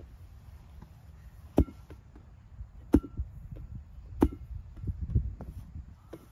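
Inflated rubber playground ball smacked in the hands three times, about a second and a half apart, each hit a sharp slap with a short hollow ping, over a low rumble of wind on the microphone.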